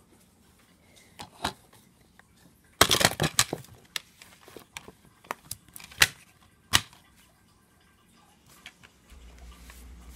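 Plastic DVD case being opened and handled: a quick run of sharp clattering clicks about three seconds in, then two single sharp clicks a few seconds later.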